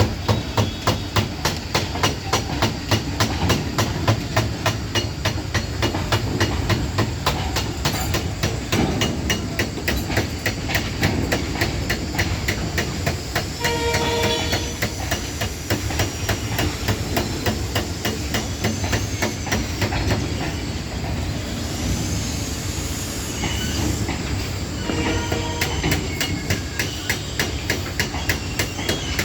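Indian Railways freight train running past, its wheels clattering in a fast, even clickety-clack over the rail joints above a steady low rumble. Brief higher tones come through about halfway and again near the end.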